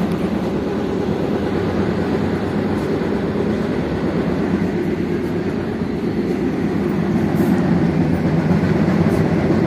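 Steady rumble of an NJ Transit double-decker commuter train running along, heard from inside a passenger car; it grows a little louder about seven seconds in.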